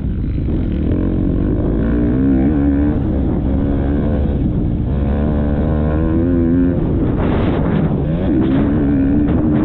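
Motocross bike engine revving hard, its pitch rising and falling again and again as the throttle opens and closes, heard from a helmet camera with wind buffeting the microphone.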